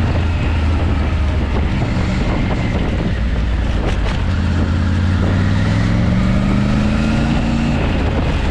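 Motorcycle engine running under way, with wind noise throughout; the engine note climbs steadily from about halfway through as it accelerates, then drops back near the end.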